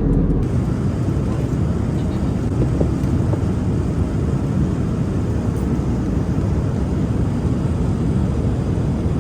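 Steady in-flight airliner cabin noise: a constant low roar of engines and airflow through the fuselage.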